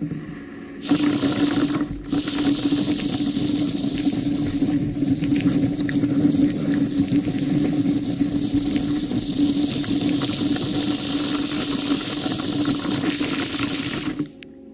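Compressed air rushing through a duct-cleaning air dislodger's whip hoses inside ductwork: a loud, steady hiss with a low hum under it. It starts about a second in, dips briefly near two seconds, and cuts off just before the end.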